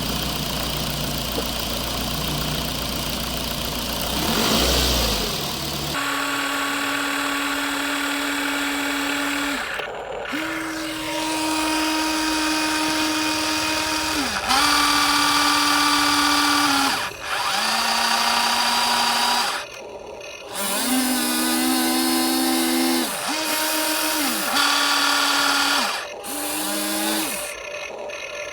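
Small electric motors of a metal RC excavator whining in repeated bursts of one to three seconds, each dipping or gliding in pitch as it starts and stops, after a steady low hum for the first several seconds.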